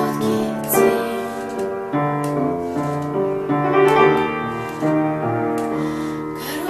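Piano playing the song's accompaniment, sustained chords struck roughly once a second.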